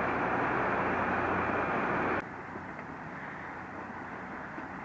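Steady traffic noise from the road bridge overhead, cutting off suddenly about two seconds in and leaving a quieter, even background.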